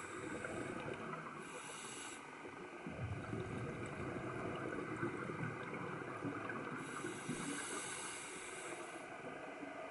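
Muffled underwater ambient noise picked up through a submerged camera's housing, with a high hiss that comes and goes twice.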